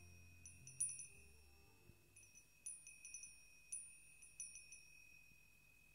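Faint, fading background music ending on tinkling chime notes: scattered light strikes over a held high ringing tone, while the low sustained notes die away in the first two seconds.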